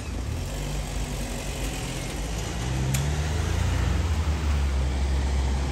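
Cars and a van driving past at close range, engines running and tyres on the road. The low engine hum grows louder about halfway through as the van passes.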